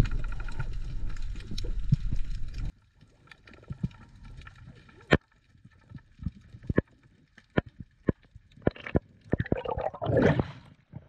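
Background music cuts off about two and a half seconds in. Underwater sounds follow: scattered sharp clicks and crackles, then a louder rush of bubbling water near the end.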